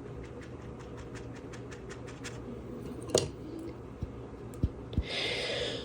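Light, quick tapping and scratching, then a sharp click, a few soft knocks, and a brief hiss near the end.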